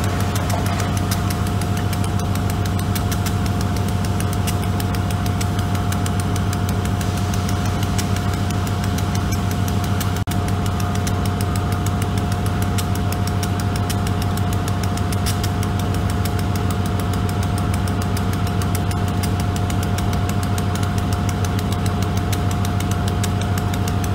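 Diesel-electric locomotive, a GE B36-7 with a V16 diesel, running steadily at a constant low hum with a steady whine above it.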